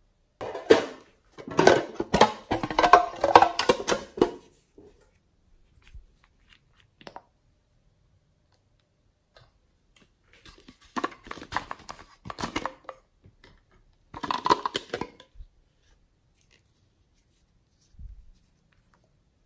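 Crinkly, crackling handling of hard plastic slime containers, in three bursts: near the start, at about ten seconds, and again around fourteen seconds.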